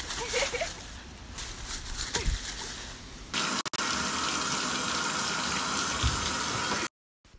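Dry leaves rustling and crunching irregularly under a golden retriever's paws. About three seconds in, this gives way abruptly to a bathtub spout running water in a steady stream, which cuts off suddenly near the end.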